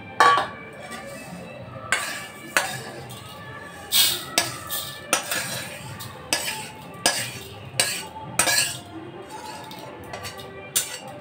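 Irregular sharp metal clinks and scrapes, about a dozen, from a metal wok gripped in metal tongs as the lentils inside are shaken about.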